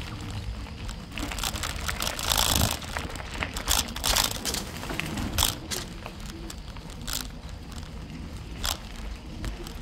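Mountain bike riding a dirt trail: the tyres crunch over dry leaves and twigs, with a steady low rumble and a run of sharp crackles and clacks from bumps, loudest in the middle.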